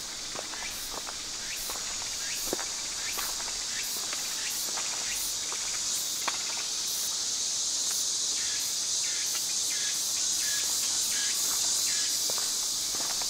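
Footsteps on a walkway, about two a second, over a steady high-pitched drone of insects that grows a little louder in the second half.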